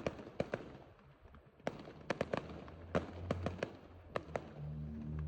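Fireworks going off: a rapid, irregular string of sharp crackles and pops, with a low rumble rising under them near the end.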